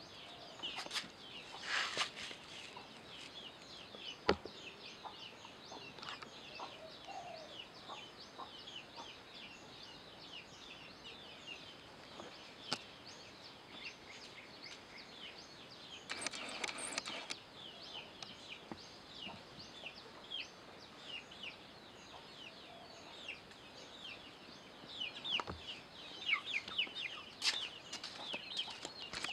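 Birds chirping continually in the background, many short, high, falling peeps a second. There is a brief rustle about two seconds in and another around the middle.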